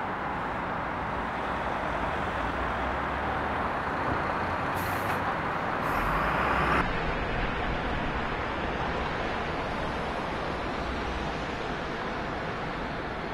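Variant T1 hot-air tarpaulin welding machine running, a steady blowing and motor noise that swells briefly a little before seven seconds in.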